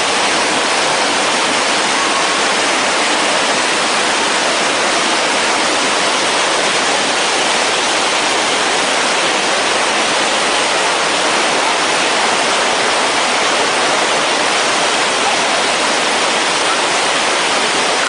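Mountain stream cascading over boulders in a steady, loud rush of white water.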